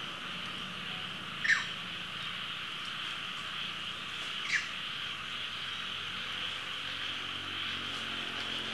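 Steady high-pitched chorus of insects, with two short falling chirps, one about a second and a half in and one about four and a half seconds in.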